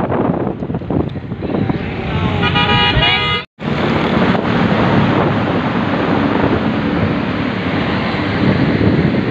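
Steady road and traffic noise heard from inside a moving car. A vehicle horn sounds for about a second near the middle, and a moment later the sound cuts out briefly before the road noise carries on.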